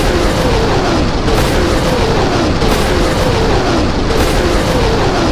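Rocket-launch sound effects from a multiple rocket launcher, fired in a steady series about every second and a half: each a sharp launch blast followed by a falling whoosh, over continuous dense noise.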